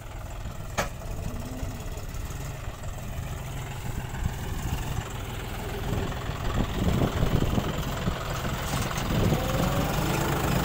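Diesel tractor engine running under load, pushing a loaded trailer sunk deep in mud. It gets louder and uneven in the second half as the engine works harder. There is one sharp click about a second in.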